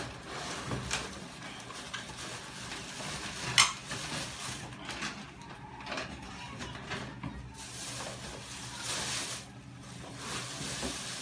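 Plastic packaging rustling and crinkling as an air-column bubble-wrap cushion and a plastic-bagged helmet are handled and lifted out of a cardboard box, with scattered small crackles and one sharp snap about three and a half seconds in.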